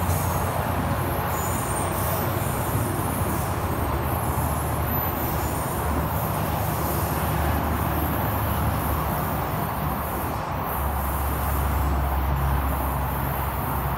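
Tri-Rail commuter train pulling away, a steady low rumble of running gear and engine. Thin high wheel squeals come through over the first half.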